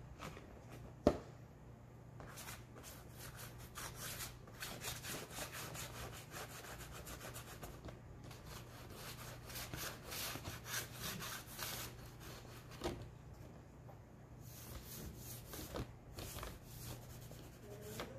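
White chalk and fingertips rubbing on black poster board in quick, repeated back-and-forth strokes, with a sharp tap about a second in.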